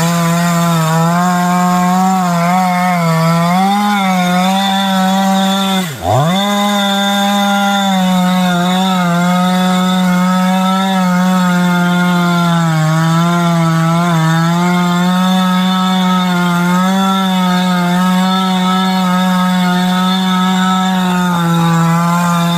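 Two-stroke Stihl chainsaw running at high revs while cutting through wood. Its pitch wavers as the chain loads up in the cut, and about six seconds in the engine briefly drops in revs and climbs straight back.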